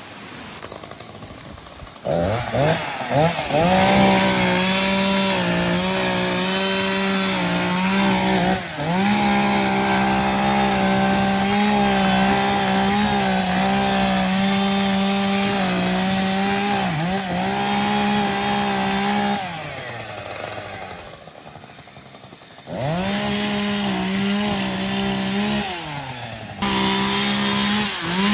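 Chainsaw engine revved up to full throttle about two seconds in and held there with a few brief dips, dropped back to a low idle for a few seconds past the middle, then revved up again, with one short drop near the end.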